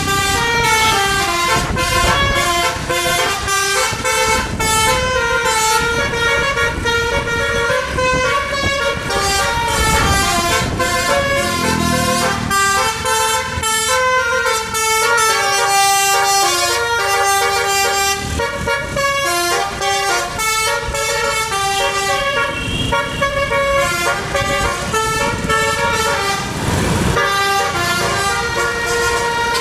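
Bus telolet horn, a multi-tone horn playing melodic tunes in quick stepped notes without pause, over the rumble of the bus on the road.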